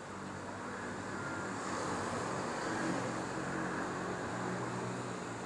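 A steady mechanical hum with a rushing noise over it, growing a little louder about two seconds in.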